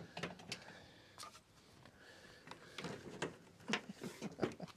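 Faint, scattered clicks and light knocks of a wooden hive box and a drill being handled, with no drill running.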